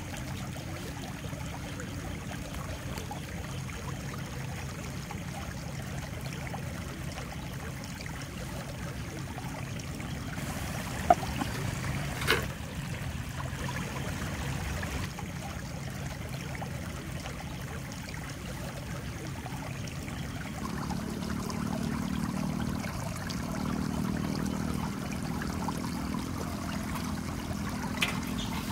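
Steady rush of flowing water, with a few short sharp taps about eleven and twelve seconds in and again near the end.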